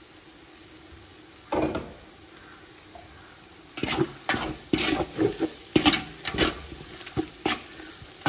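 Onions, green chillies and herbs frying in oil in a large metal pot, with a faint steady sizzle. There is one sharp knock or scrape about a second and a half in. From about four seconds a metal ladle stirs, scraping against the bottom of the pot in quick repeated strokes.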